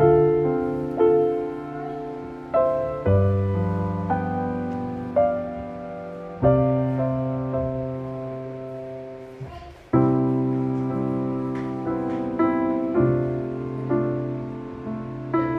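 Background music: slow solo piano, single notes and chords struck about once a second and left to fade, with a louder chord about ten seconds in.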